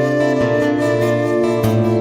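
Background music: soft, slow instrumental with sustained chords changing about every half second.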